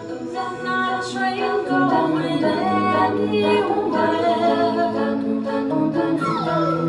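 Several voices singing a cappella in harmony, holding long notes that move together from chord to chord. The singing swells in the first second or so and then stays full.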